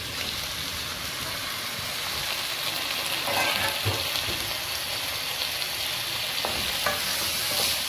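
Raw chicken pieces sizzling as they land in hot oil with frying onions and ginger-garlic paste, a steady sizzle that swells a little a few seconds in. A few light knocks sound over it.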